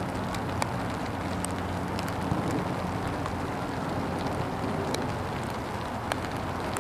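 Steady outdoor background noise at a sports field: a low, even hum under a hiss, with a few faint scattered ticks.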